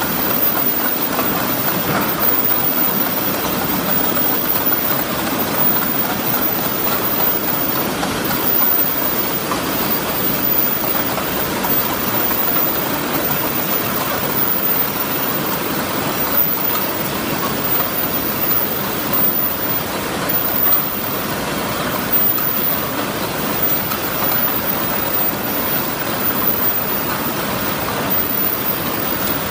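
A row of paper cup forming machines running on a factory floor: a steady, dense machine din with no distinct rhythm.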